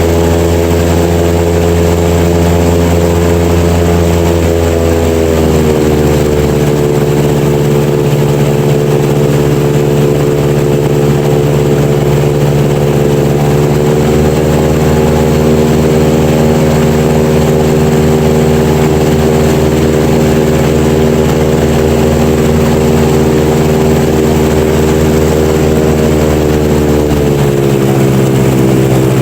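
Airboat engine and air propeller running steadily while cruising, its pitch easing down about five seconds in, rising slightly midway and dropping again near the end.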